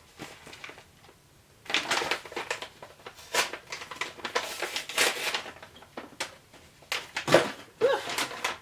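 Plastic jerky bag crinkling and rustling in the hands as it is opened, in quick irregular crackles. The crackling starts about two seconds in.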